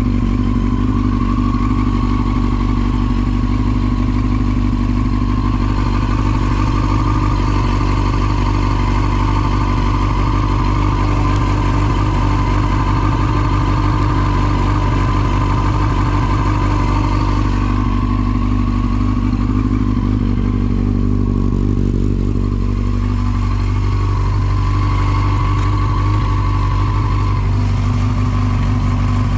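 Yamaha YZF-R6 (5EB) inline-four motorcycle engine idling steadily through a Striker titanium full exhaust system, running smoothly without abnormal engine noise, as the seller states.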